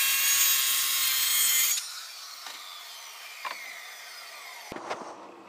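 Circular saw cutting through a sheet of plywood. About two seconds in the trigger is released and the blade spins down with a falling whine, and a single knock comes near the end.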